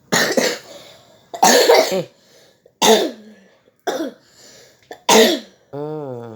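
A person coughing, five separate coughs about a second apart, then a short voiced sound near the end.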